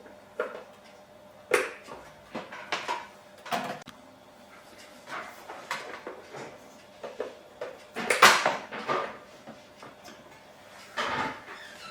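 Handling noises while the electric desk's motor cables are plugged together: scattered clicks, knocks and scraping or rustling, loudest about eight seconds in.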